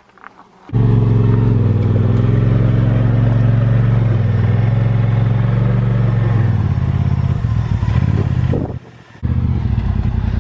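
Ford F-150's 5.0L V8 engine running at a fairly steady pitch. It comes in suddenly about a second in and drops out briefly near the end.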